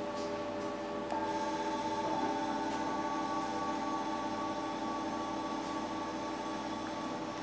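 Instrumental accompaniment of held drone notes, several steady pitches sounding together. A higher note comes in sharply about a second in, and another joins a second later.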